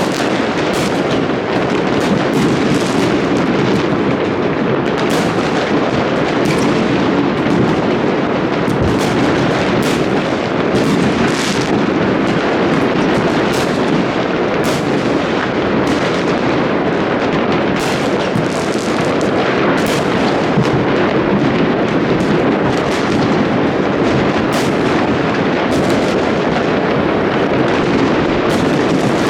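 New Year fireworks and firecrackers going off without a break: a dense, continuous crackle and rumble of many explosions, with frequent sharp cracks.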